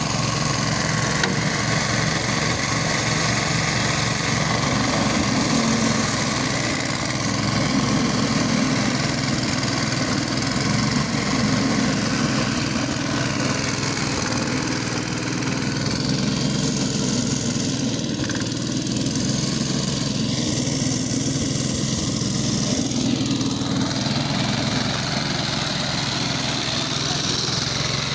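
Engine of a push lawn mower running steadily.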